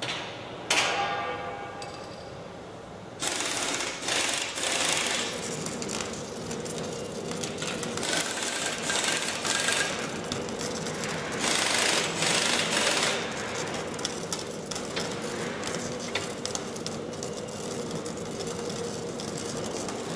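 Schlatter flash butt welding machine flashing on a rail joint: a sudden onset about three seconds in of loud, rapid crackling and spitting from the arcing rail ends, coming in surges, over a steady hum. A single ringing metallic knock about a second in.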